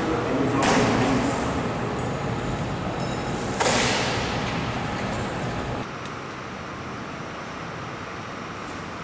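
Steady background noise of an aircraft maintenance hangar, broken twice by a short, sharp burst of hiss-like noise, about a second in and again near the middle. Around six seconds in it drops to a quieter steady hum.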